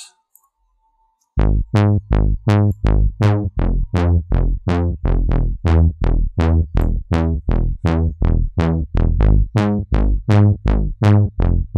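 Trombone-style 'elephant' synth bass from NI Massive, a saw wave through a low-pass filter with tube saturation and chorus, playing a quick repeating pattern of short notes. Each note opens bright and quickly dulls as the filter envelope closes, at about three notes a second. It starts about a second and a half in.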